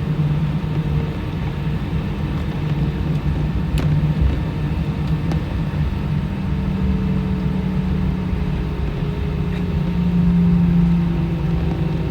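Steady low drone of an airliner's engines heard inside the cabin while the plane is on the ground before takeoff, swelling slightly near the end, with a couple of faint clicks about four and five seconds in.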